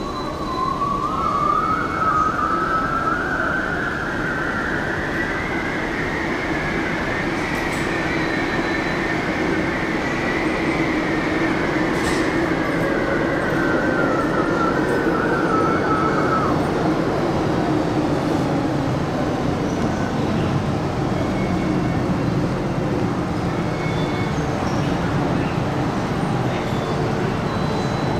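MTR M-Train metro train running on the rails. Its electric traction motors whine, rising in pitch, then easing down and cutting off about two-thirds of the way through, over a steady rumble of wheels on rails.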